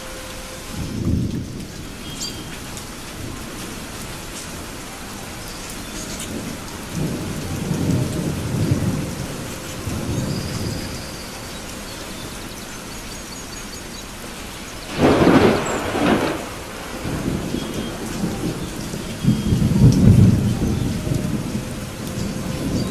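Thunderstorm: steady rain with rolling thunder. Low rumbles come about a second in, again from about seven to eleven seconds, and near the end, and a sharper, louder thunderclap about fifteen seconds in.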